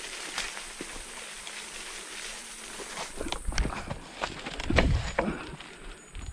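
Off-road electric scooter jolting over rough, leaf-covered forest ground: a constant crackle and rustle of leaves and twigs, with a stretch of heavy, uneven low thumping from about three to five and a half seconds in.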